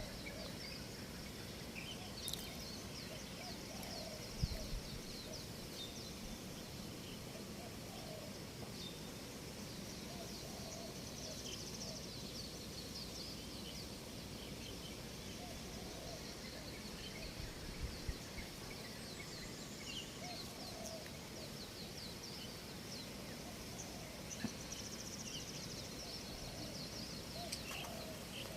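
Birds chirping outside: many quick high chirps come one after another, with scattered lower short calls, over a steady low background rumble.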